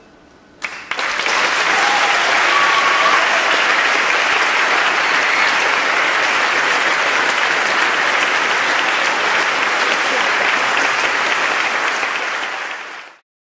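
Audience applause breaking out under a second in, a dense steady clapping that fades out quickly near the end.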